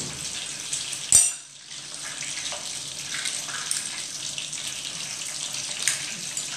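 Stuffed mussels deep-frying in hot oil: a steady sizzle with small scattered crackles and pops. A sharp click sounds about a second in.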